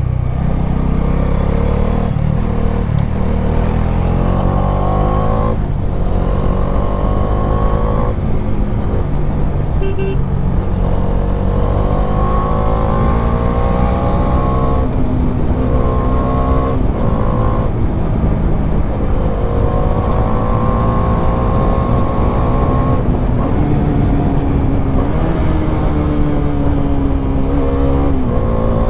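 Bajaj Dominar 400's single-cylinder engine and exhaust running on the move. The pitch climbs repeatedly as it accelerates and drops back at each break, several times over, under a steady low engine note.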